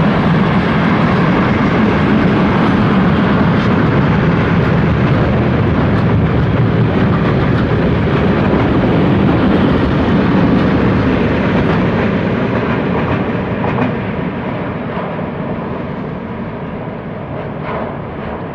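Freight train wagons rolling past on the rails with a steady heavy rumble and faint clicks of wheels over the track, getting quieter over the last few seconds as the train draws away.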